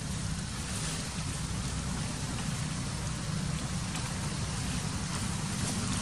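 Steady rushing background noise with a low rumble underneath, unchanging throughout.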